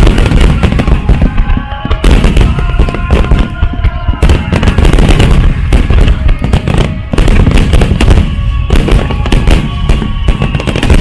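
Aerial fireworks bursting in a dense, almost continuous barrage of loud explosions and crackles, with music playing over loudspeakers beneath them.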